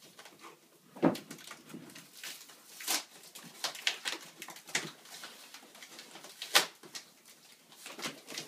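Packing tape being ripped and cardboard flaps scraped and tugged as a cardboard box is torn open by hand: a string of short, sharp rips and rustles, with the loudest rips about a second in and near the end.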